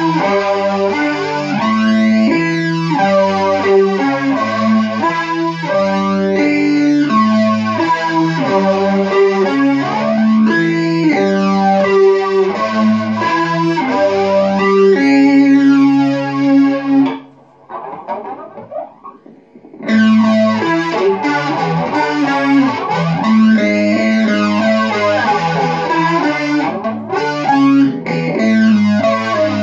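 Electric guitar played through effects pedals: a repeating pattern of notes with a sweeping effect that rises and falls about every four seconds. Just past halfway it drops away almost to silence for a couple of seconds, then comes back.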